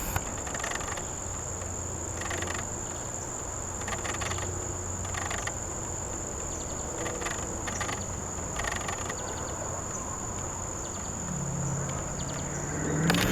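Chorus of singing insects: a steady high-pitched trill, with louder chirping calls about every one and a half to two seconds. Near the end a low buzzing hum comes in and rises in pitch.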